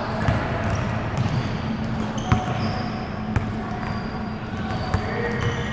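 Ball-game court sounds: four sharp knocks spread across the stretch and a few short high squeaks, over a steady low hum and faint background voices.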